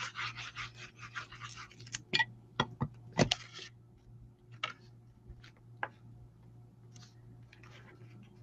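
Paper and cardstock being handled and rubbed down: a quick run of scratchy rubbing strokes, then a few sharp taps and clicks, the loudest about three seconds in, and light ticks after.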